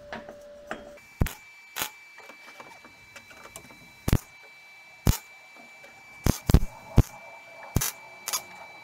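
Electric arc welder tack-welding a stainless steel mixing bowl onto a steel dashboard: about nine short, sharp bursts of arc, each a fraction of a second, spaced irregularly.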